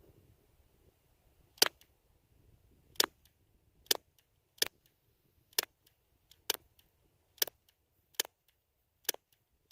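A BB gun fired repeatedly at clay targets: about ten sharp shots, roughly one a second, some with a faint tick just after.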